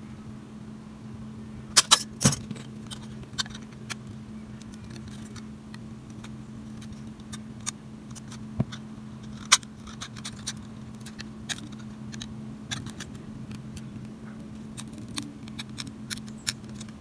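Scissors snipping paper in scattered sharp clicks, the loudest few about two seconds in, over a steady low hum.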